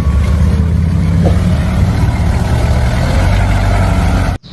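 A motor vehicle engine running steadily, cutting off abruptly near the end.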